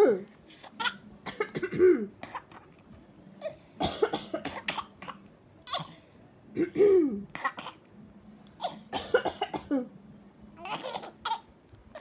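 An elderly woman coughing in short bursts, over and over, and a baby laughing back at the coughs.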